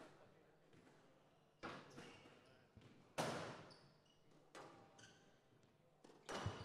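Squash rally: sharp cracks of the ball off rackets and the walls, about five in all and a second or more apart, the loudest about three seconds in, with short high squeaks of shoes on the court floor in between.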